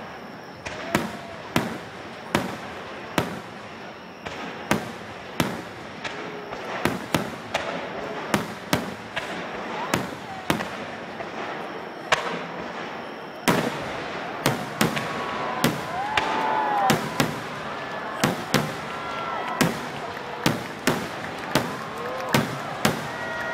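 Starmine barrage of aerial firework shells bursting one after another: sharp bangs about one to two a second over a steady background of noise, which grows louder about halfway through.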